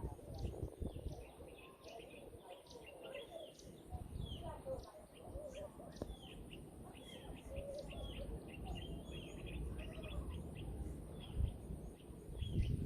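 Birds chirping, many short high calls repeating throughout over a low, steady rumbling noise.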